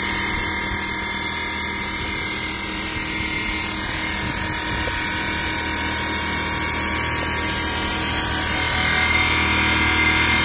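Stone-cutting bridge saw running with a steady whine.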